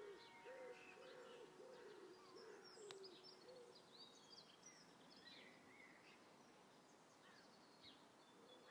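Near silence with faint birds calling: a run of about six low, hooting coos in the first four seconds, and scattered small high chirps throughout.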